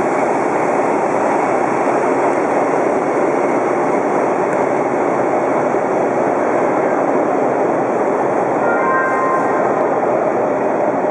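Toronto subway train of Hawker-Siddeley H4 cars running, a steady loud rumble and rattle of wheels on rail. About nine seconds in, a brief faint squeal rises over it.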